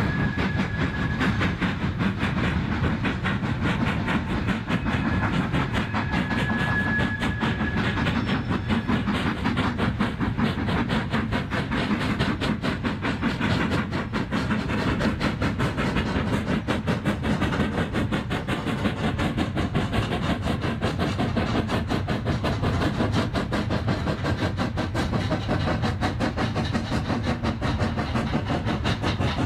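Steam tank locomotives working hard with a loaded train of wagons: a rapid, continuous run of exhaust beats over the rumble of the train. A high, steady whistle tone sounds briefly twice in the first eight seconds.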